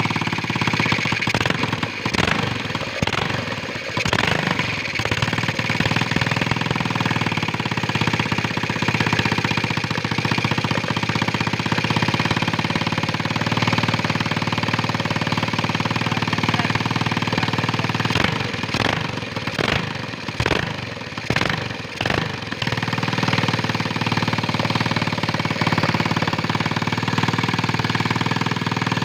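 Old motorcycle engine running steadily with a fast, even pulse. It turns uneven twice, about two to four seconds in and again around nineteen to twenty-two seconds in.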